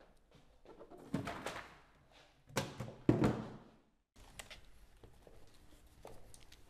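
Plastic ballot box set down on a wooden table and emptied, with a few knocks and thumps, the loudest about three seconds in, followed by the light rustle of ballot papers being handled.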